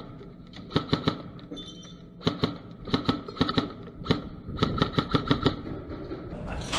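Airsoft guns firing, sharp cracks in short rapid strings of shots, several volleys about a second apart.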